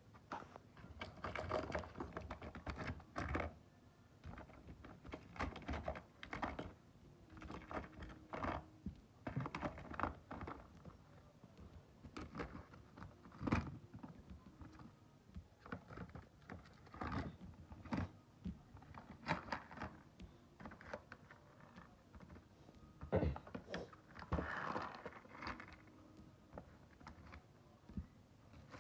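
Fishing sinkers and other small tackle clicking and clattering in a tackle box as they are handled and taken out, in irregular short knocks.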